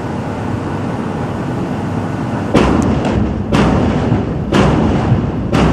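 Explosive charges going off one after another on an offshore platform being removed: a series of sharp booms about a second apart, starting about halfway through, over a steady background rush.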